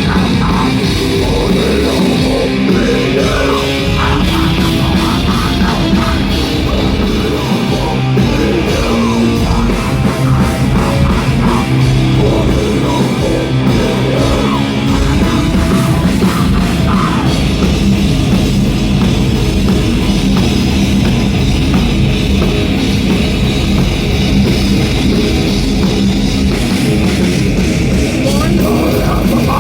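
A live rock band playing loud, heavy music with drums, played without a break.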